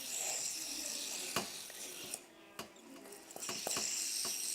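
Metal fidget spinner spinning with a rattling whir that fades out about two seconds in and returns, with several sharp clicks as it is handled and caught.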